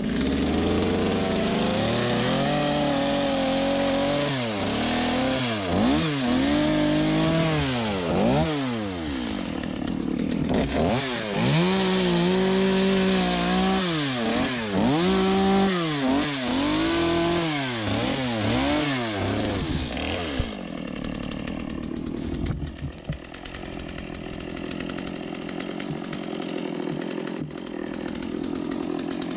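Chainsaw engine repeatedly revving up and dropping back as it cuts through branches and firewood. About twenty seconds in it settles to a quieter, steady idle.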